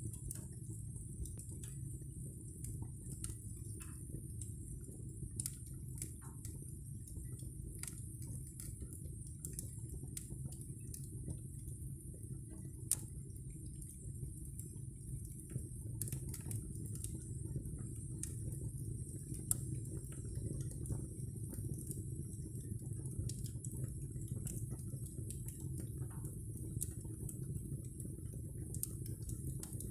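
Oak, beech and hornbeam logs burning in the firebox of a natural-draft solid-fuel boiler: a steady low rumble of the flames with scattered sharp crackles and pops from the wood.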